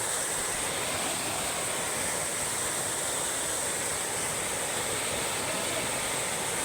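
Steady rushing of a waterfall, an even wash of water noise.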